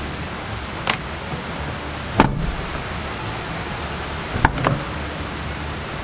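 A few short, sharp knocks and clicks from a Jeep Wrangler JK door being handled on its hinges: one about a second in, another around two seconds, and a close pair past the middle. A steady hiss runs underneath.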